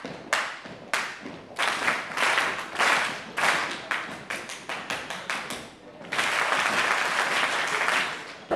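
A group of people clapping their hands: scattered, uneven claps at first, then about six seconds in, everyone claps at once in a dense burst of applause lasting about two seconds.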